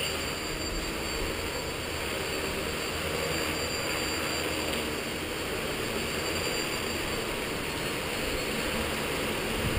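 Skyartec Wasp V3 electric radio-controlled helicopter hovering, its motor and rotor giving a steady faint whine over an even hiss.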